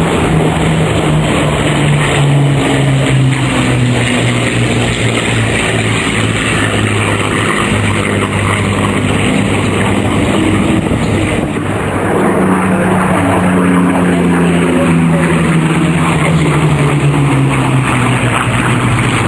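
Piston engine of a propeller aircraft flying past. Its pitch slides down as it goes by, and it passes a second time about halfway through.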